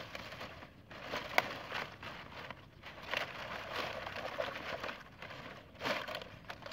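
Dry palm fronds rustling and crackling in irregular bursts as they are pressed and shifted by hand in shallow water, with one sharp crack about a second and a half in.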